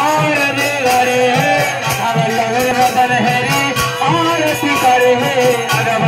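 Devotional kirtan: a man singing a chant through a microphone and PA, with jingling percussion keeping a quick steady beat and a hand drum underneath.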